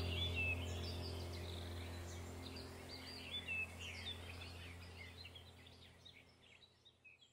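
Songbirds singing many short chirps and warbles over a steady low hum, all fading out gradually.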